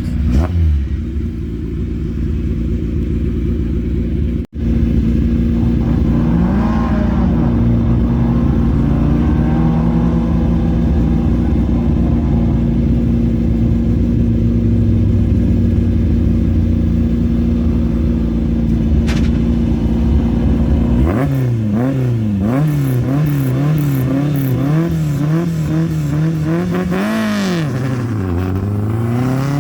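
Historic rally car's engine idling at a stage start, then the throttle blipped in quick repeated revs for several seconds, and near the end a big rev and a steadily climbing engine note as the car launches.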